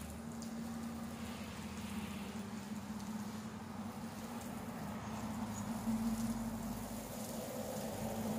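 Garden hose spray pattering onto leafy vegetable plants and soil, a steady hiss, over a steady low hum.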